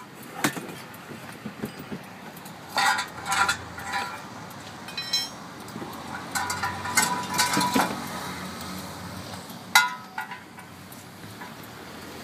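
Metal clinking and rattling of a steel wheel clamp being handled and worked off a car wheel. The clinks come in a few separate clusters, some with a short ring.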